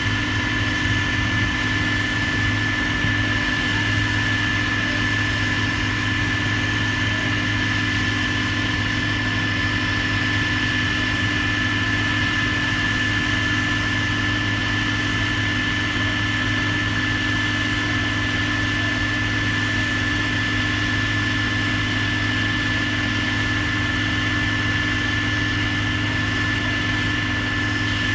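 A heavy machine's engine running steadily at an even pitch, with a constant high whine over it.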